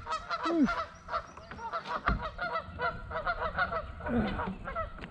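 Geese honking over and over, many short calls overlapping, with a single dull thump about two seconds in.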